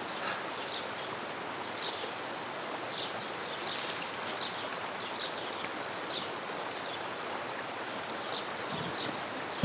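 A river flowing steadily, with small birds chirping now and then.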